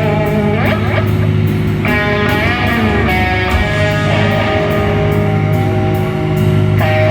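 Live rock band playing loud, fast-changing instrumental music: distorted electric guitar with sliding, bending notes over bass and drums.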